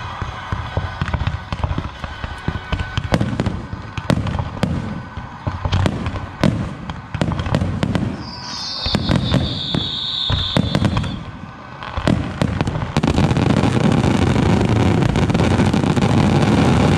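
Aerial fireworks show: repeated shell bursts and crackling, with a high whistle about halfway through that dips in pitch and then holds for a couple of seconds. In the last few seconds the firing becomes a dense, continuous barrage, which cuts off suddenly.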